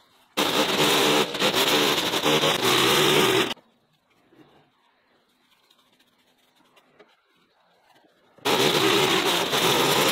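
A small engine running loudly in two spells, each cut in and out suddenly: one starting about half a second in and stopping about three and a half seconds in, the other starting again near the end, with near silence between.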